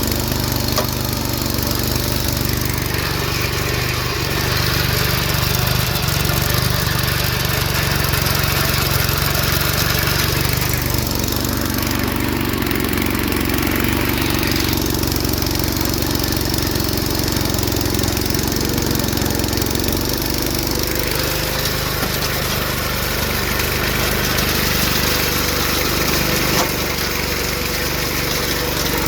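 John Deere 110 round-fender garden tractor's single-cylinder Kohler engine running under load while driving a belt-driven tiller. The engine note shifts several times as the load changes.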